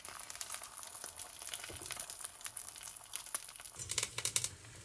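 A fried egg sizzling faintly in ghee in a pan: a steady high hiss with small crackles that stops about three-quarters of the way through. A few scrapes and taps follow as a silicone spatula lifts the egg out of the pan.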